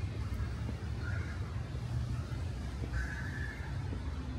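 City street ambience: a steady low traffic rumble with a hiss over it, and two brief higher-pitched calls or honks about one second and three seconds in.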